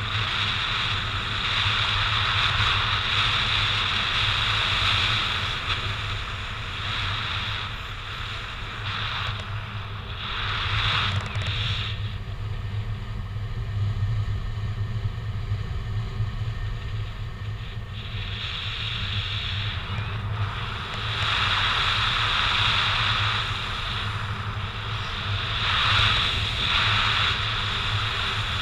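Airflow rushing over the camera's microphone in paraglider flight: a steady low rumble with a hissing wind noise that swells and fades, easing for several seconds midway and building again later.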